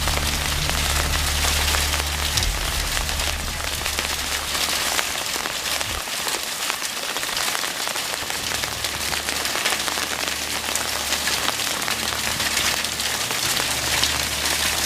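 Steady rain falling outdoors, an even hiss, with a low steady hum underneath that drops out for a moment about six seconds in.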